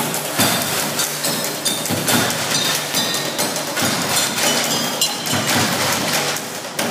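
Basketballs dribbled on a stage floor as rhythmic percussion, a steady run of quick thuds and knocks played as a beat.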